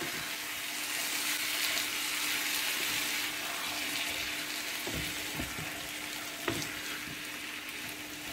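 Potato cubes and curd sizzling in a frying pan as a wooden spatula stirs them. Soft knocks of the spatula against the pan come about five seconds in and again a second and a half later.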